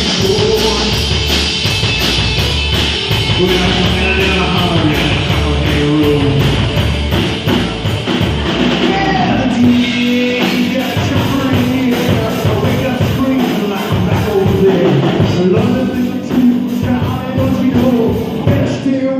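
Loud rock music, a full-band passage.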